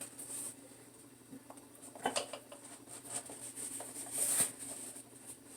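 Small taps, clicks and rustles of a mailed package being handled, with a cluster of clicks about two seconds in and a brief scratchy rustle a little after four seconds.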